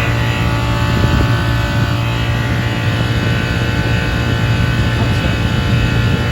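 Lennox HP16 heat pump outdoor unit running: a steady low compressor hum under the even rush of the condenser fan.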